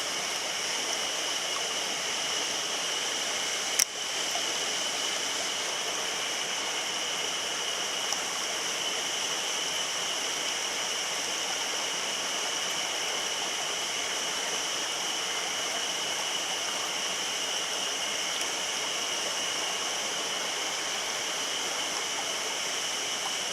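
Mountain stream flowing steadily, with a single sharp click about four seconds in.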